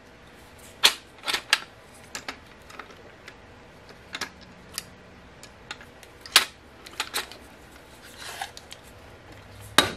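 Scattered sharp clicks and light knocks from the metal parts of an Incra 1000HD miter gauge and its fence being handled and adjusted, about a dozen in all, the loudest about six seconds in.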